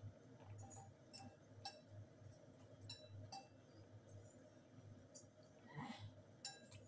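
Faint clicks and taps of wooden chopsticks against a plastic food container as noodles are stirred and picked up, about eight scattered ticks over a low steady hum. A short low sound rises in pitch about six seconds in.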